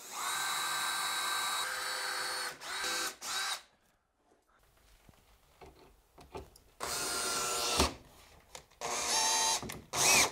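Makita cordless drill/driver driving screws into MDF, its motor whining in several separate runs. There is a long run of about two and a half seconds at first, then short bursts, then two more runs after a gap of a few seconds.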